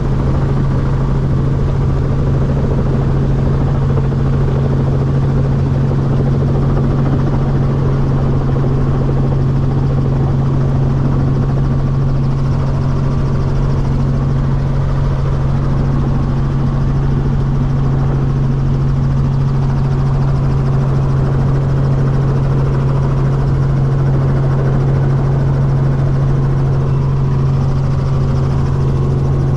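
Robinson R44 helicopter running with its rotor turning: a steady, unbroken drone of engine and blades with a strong low hum.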